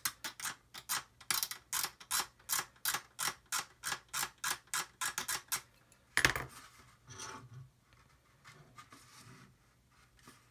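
Metal blade scraping the styrene plastic of a model submarine hull in quick, regular strokes, about four a second, for roughly five and a half seconds, shaving material off the stem. A single sharp knock follows about six seconds in, then fainter, irregular scratching.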